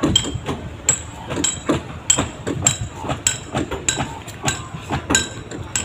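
Hammer blows on wooden boat hulls in a boatyard, about three a second and uneven, each with a metallic clink.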